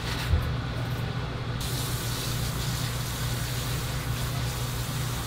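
A steady spraying hiss starts suddenly about a second and a half in, over a constant low hum, with a single short thump near the start.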